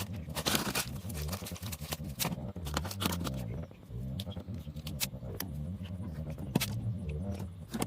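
Irregular small clicks and taps, as of hand tools working on a smartphone, over a low steady hum.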